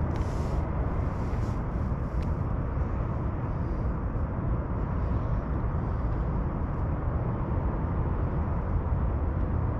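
Steady low rumbling noise of light wind on the camera microphone, with no distinct events.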